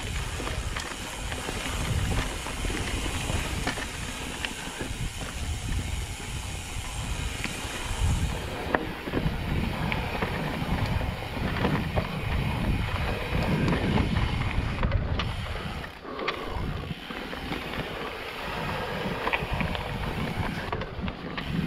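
YT Decoy 29 electric mountain bike descending a dirt and rocky singletrack at speed: tyres rolling over dirt and stones, with frequent short clicks and knocks as the bike rattles over bumps, under steady wind noise on the microphone.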